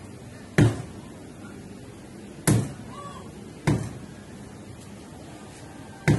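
Meat cleaver chopping raw chicken on a wooden log chopping block: four sharp chops at uneven intervals, each dying away quickly.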